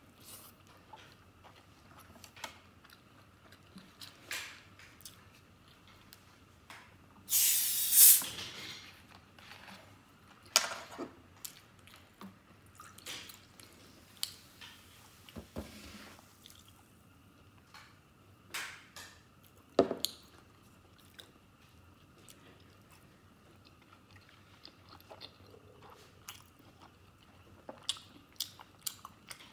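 Close-miked wet chewing, biting and smacking of soft stewed pork fat and noodles. A loud fizzing hiss comes about seven seconds in as a plastic cola bottle is opened, followed by the fainter sound of cola being poured and fizzing into a glass.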